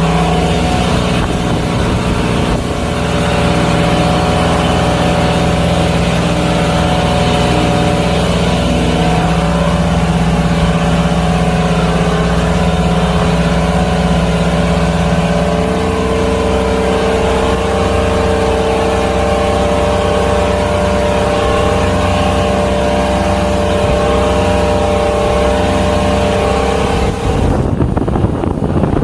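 Maxum motorboat's engine running steadily under way on a sea trial, its tone shifting about halfway through.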